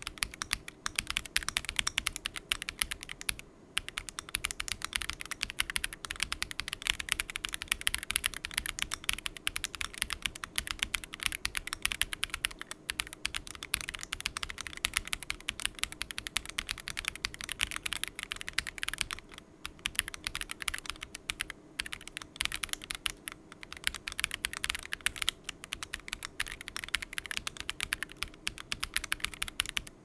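Typing at normal speed on an Akko ACR Pro Alice Plus Alice-layout mechanical keyboard. It has stock Akko Crystal switches, a polycarbonate plate, gasket mounting and ASA-profile keycaps. The keystrokes come as a fast, continuous patter of clacks with a few brief pauses.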